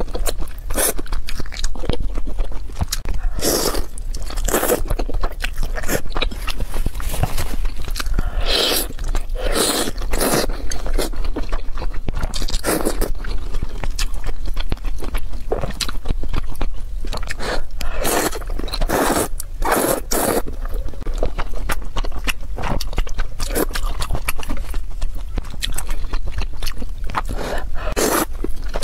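Close-miked eating sounds: noodles slurped and soft food chewed with wet mouth noises, coming in many short, irregular bursts.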